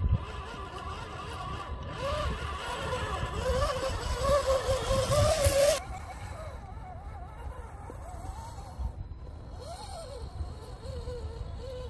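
Axial SCX10 RC crawler driving over dirt and dry grass: its small motor and gears whine, rising and falling in pitch with the throttle, over a hiss of tyres on the ground that is louder in the first six seconds and then drops back.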